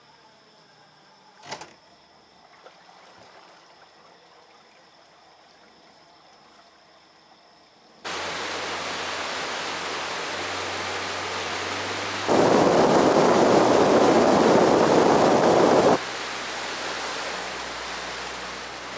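Small boat running fast on open water. After a quiet start with a single click, a loud rush of wind and water with a low motor hum underneath comes in suddenly. It gets much louder for a few seconds in the middle, then drops back.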